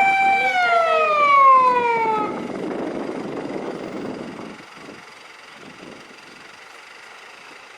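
Fire engine siren holding a steady wail, then falling in pitch and cutting off a little over two seconds in. A rumble of vehicle noise follows and fades away.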